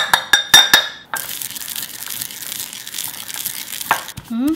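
A measuring cup knocking several times on the rim of a ceramic mortar, the mortar ringing, as toasted sesame seeds are tipped in; then a wooden pestle grinding the seeds against the ceramic, a steady gritty crushing. Near the end a voice gives a short hum that slides up and back down.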